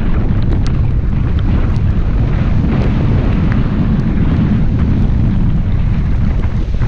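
Heavy wind buffeting on the microphone of a camera mounted outside a moving car in the rain: a dense, steady low rumble, with scattered small ticks of raindrops striking the camera.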